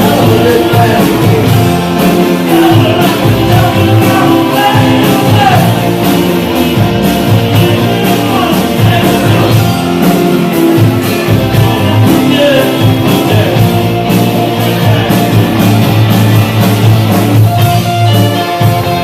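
Rock music: a band playing with electric guitar and a steady drum beat.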